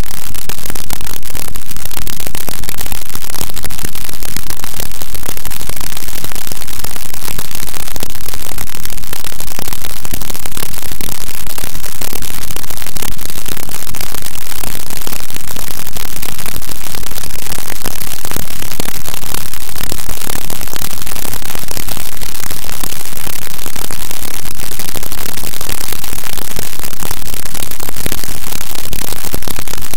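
Harsh noise music: a loud, unbroken wall of distorted static with no melody or beat, unchanging throughout.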